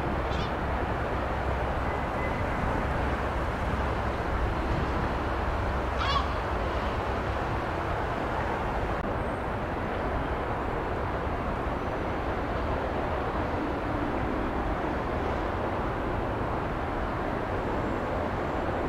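Steady outdoor background rumble with no rise or fall, and two brief bird calls: one near the start and one about six seconds in.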